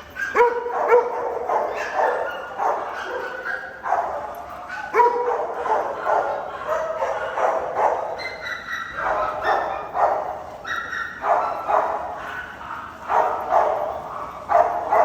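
Several dogs barking and yipping over one another in quick, overlapping bursts while playing together.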